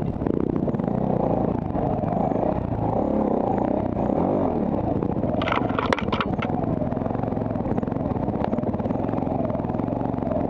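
Dirt bike engine running steadily as the bike picks its way over a rocky trail, with a quick cluster of sharp knocks a little past halfway.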